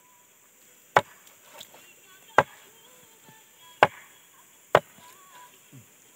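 Large knife chopping roasted meat on a wooden plank: four sharp chops, a second or so apart.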